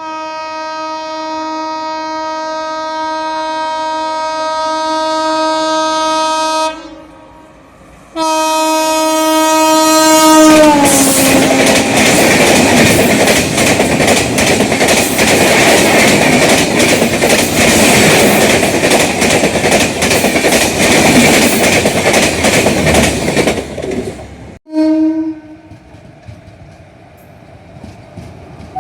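Train horn sounding a long steady blast that grows louder as the train approaches, then a second blast that drops in pitch as the locomotive passes. The coaches follow, rattling past loudly with a fast clickety-clack over the rail joints, until an abrupt cut near the end, after which there is quieter train noise and a short horn note.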